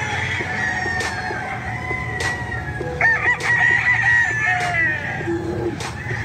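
Gamecock rooster crowing once, starting about three seconds in and lasting under two seconds.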